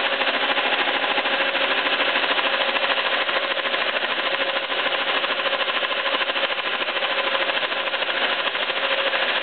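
Sandvik face-milling head on a Stanko 6T10 milling machine, spinning at 800 RPM and taking a 1.5 mm skim cut off an aluminium cylinder head: a steady, fast rattling cut over the machine's running hum, with a faint steady tone underneath.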